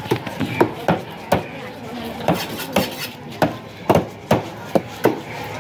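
Heavy knife chopping through fish into steaks on a wooden table: a string of sharp, irregular knocks, roughly two a second.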